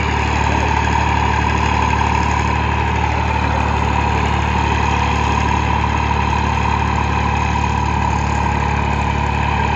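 Massey Ferguson 9500 tractor's diesel engine running steadily as it pulls a three-bottom mouldboard plough through dry soil.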